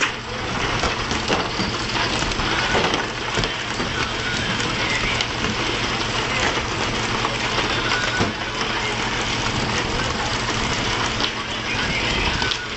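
A fishing boat's engine running steadily under a constant rush of splashing water, with scattered knocks and slaps as pole-caught tuna are hauled aboard.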